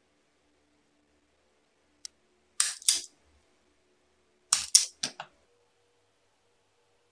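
Automatic wire stripper working on a thin two-core 0.75 mm² wire: a small click, then two bursts of sharp mechanical snaps a couple of seconds apart as the jaws clamp, cut and pull the insulation.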